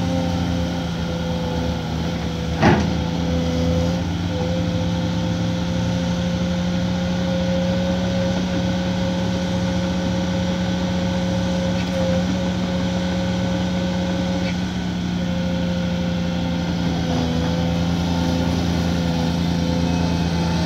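Caterpillar 340D hydraulic excavator's diesel engine running steadily at working speed, with a held tone over the low drone, as the machine swings and works its bucket. A single short sharp knock sounds about two and a half seconds in.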